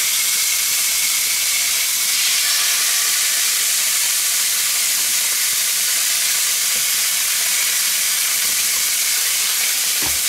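Paprika-marinated steaks sizzling on the hot ribbed plates of a Tefal OptiGrill contact grill set to searing, a steady high hiss as the meat is laid down. A single light knock comes near the end.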